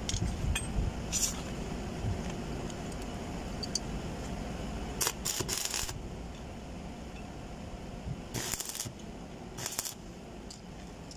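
Metal tools and cable clinking as they are handled and set down, then, near the end, two short hissing crackles of a stick-welding arc as a 6013 rod is struck on the pipe-to-flange joint to tack it.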